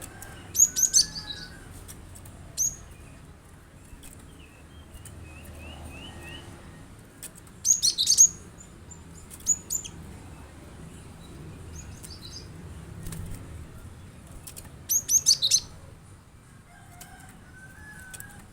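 Cinereous tit (gelatik batu) calling: bursts of sharp, high notes that drop quickly in pitch, given in clusters of a few notes about a second in, around eight seconds in and near fifteen seconds in, with single notes between and softer chattering notes in the gaps.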